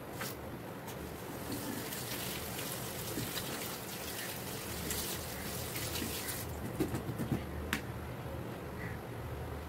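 Tap water running and splashing into a kitchen sink as tomatoes are rinsed in a plastic basket, the splashing heavier through the middle as water pours out of the basket. A few short knocks near the end.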